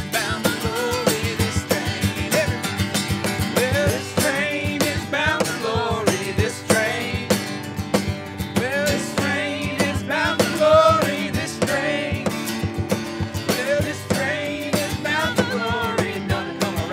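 Two acoustic guitars strummed in a steady rhythm while several voices sing together.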